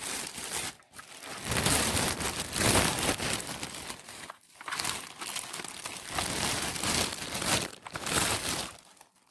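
Crinkling, rustling handling noise in irregular stretches a few seconds long, with short breaks about a second in, midway and near the end.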